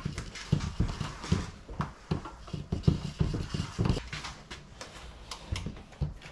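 Handling noise: irregular light knocks and bumps with rustling, several a second, as parts are worked into place by hand.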